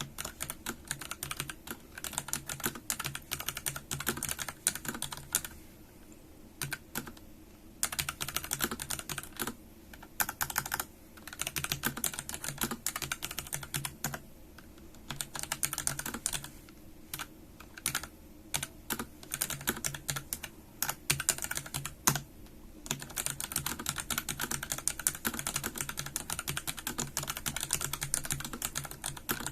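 Pulsar PCMK tenkeyless 87-key mechanical keyboard being typed on: fast runs of clacking keystrokes broken by short pauses of about a second.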